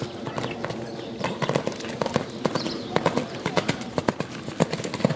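A horse cantering: a run of hoofbeats, growing denser and louder from about a second in.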